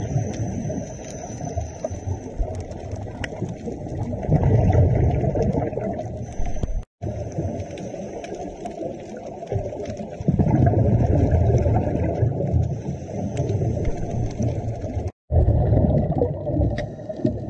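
Muffled underwater sound picked up through a camera housing: the low rumbling gurgle of scuba divers' exhaled bubbles, swelling in bursts, over a thin steady high whine. It cuts out completely twice for a moment.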